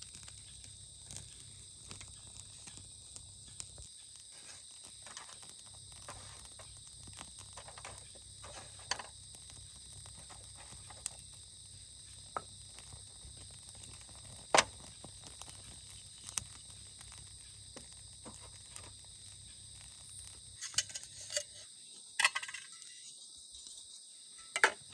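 A steady, high chorus of crickets and other insects, with scattered sharp clicks and knocks. The clicks come more often near the end.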